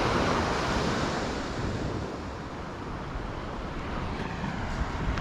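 Surf breaking and washing up the beach, with wind on the microphone; the wash swells at the start and slowly eases off.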